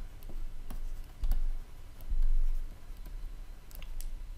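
Stylus tapping and clicking on a tablet while handwriting: irregular sharp clicks, with a few dull low bumps about a second and two seconds in.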